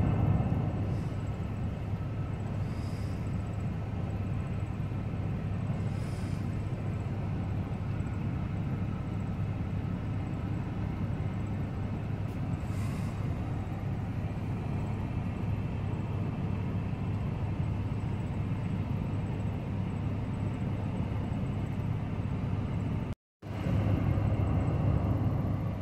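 Steady low vehicle rumble, with a short break about 23 seconds in after which it is slightly louder.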